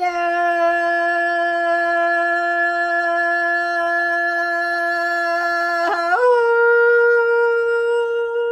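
A woman humming one long, steady note that starts suddenly, then slides up to a higher note about six seconds in and holds it.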